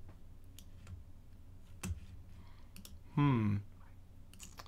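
Scattered sharp clicks of a computer mouse and keyboard being worked, with several in quick succession near the end. A short voiced syllable, like a brief hum, a little past three seconds in is the loudest sound.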